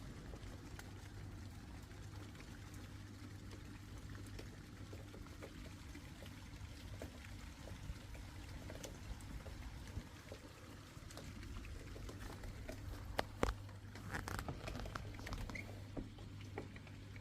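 A steady low hum under a faint crackle of scattered small clicks, with a few sharper clicks about thirteen seconds in.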